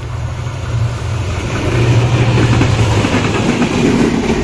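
Diesel locomotive of an oncoming train drawing close on the adjacent track, its low engine hum growing louder, then its passenger coaches rushing past at close range with rattling wheel clatter.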